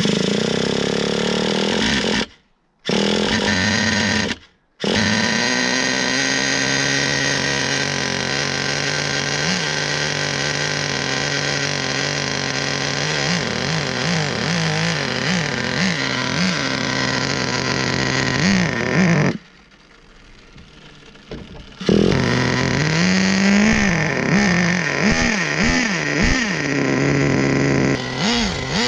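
Traxxas Nitro Slash's small nitro engine running at a high idle, with two brief breaks in the sound in the first five seconds. It then revs up and down with throttle blips and keeps revving as the truck drives off over snow and ice.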